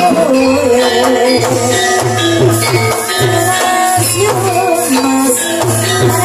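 Live gamelan music accompanying an ebeg (kuda lumping) horse dance: a steady low beat under a wavering melodic line.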